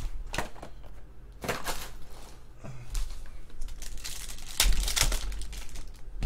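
Foil trading-card pack wrapper crinkling and tearing open as it is handled, in irregular crackles and short bursts, the loudest a little before five seconds in.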